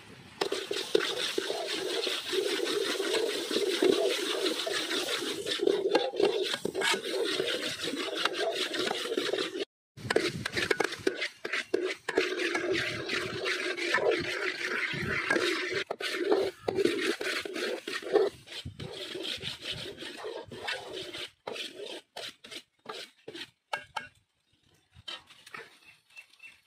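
A hand mixing and squeezing a mashed goat-brain mixture with curry masala in a metal bowl: wet squishing and rubbing with many small clicks. There is a brief break about ten seconds in, and the sound thins to a few scattered squishes after about twenty seconds.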